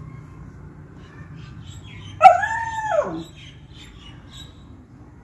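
A beagle gives one loud, drawn-out bark-howl about two seconds in, lasting about a second, its pitch falling away at the end.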